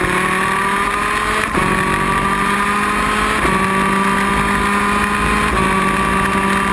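Onboard sound of a 250 cc two-stroke superkart engine at full throttle, pulling up through the gears. Its pitch climbs slowly and drops sharply at three upshifts, about one and a half, three and a half, and five and a half seconds in.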